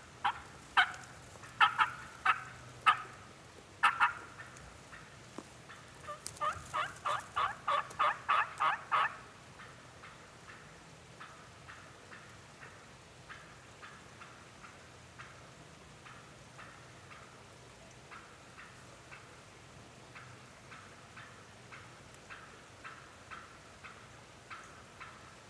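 Turkey yelps on a mouth-blown turkey call: half a dozen loud, sharp yelps, then a fast run of about ten yelps, with fainter, similar notes repeating through the rest of the time.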